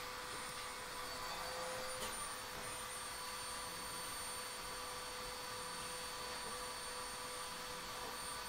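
Steady hiss with a faint electrical hum and thin high-pitched whining tones that do not change, with a faint tick about two seconds in.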